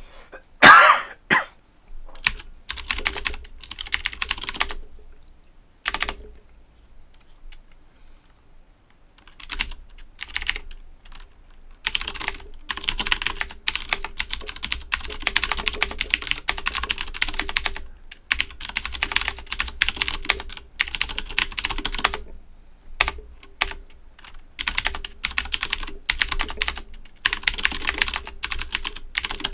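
Typing on a mechanical keyboard with Cherry MX Blue switches, a quick run of crisp clicky keystrokes in spurts separated by short pauses. About a second in come two short, much louder bursts.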